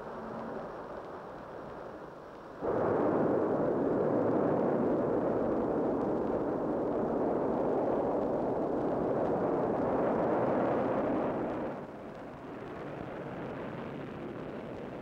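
Rocket launch noise on an old film soundtrack: a steady rushing roar of rocket engines at lift-off. It jumps sharply louder about two and a half seconds in, holds, then drops back to a lower level about twelve seconds in.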